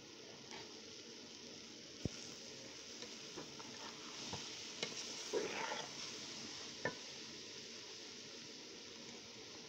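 Shredded cabbage frying in oil in a steel pot, sizzling steadily as a steel spoon stirs the spices through it. The spoon clinks sharply against the pot about two, five and seven seconds in, with a brief scrape at around five and a half seconds.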